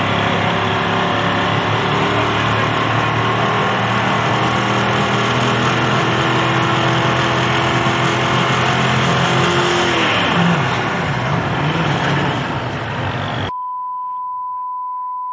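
Turbocharged diesel engine of a pro stock pulling tractor held at high, steady revs, the revs falling off about ten seconds in. About two seconds before the end the engine sound cuts out and a steady beep tone takes its place.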